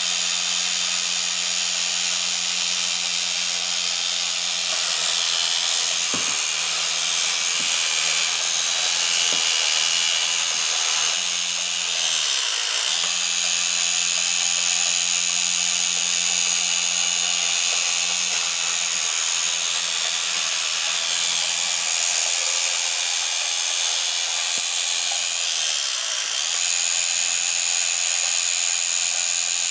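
Small electric motor and gears of a 1960s Yonezawa battery-operated tinplate Porsche 906 toy car whirring steadily as it runs, with a couple of light clicks a little before the middle.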